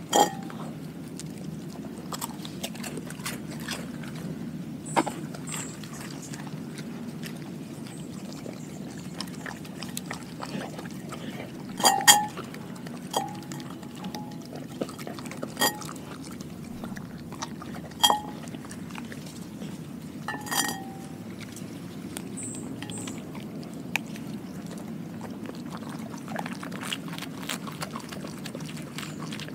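A dog eating raw quail eggs from a glass bowl, with wet licking and chewing throughout. Its teeth and muzzle knock the bowl in about a dozen sharp glass clinks that ring briefly, loudest in the middle stretch.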